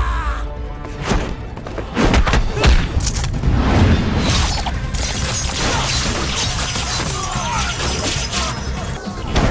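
Action-film fight soundtrack: a music score under a string of heavy punch and kick impacts and thuds in the first few seconds, then a denser stretch of crashing and shattering.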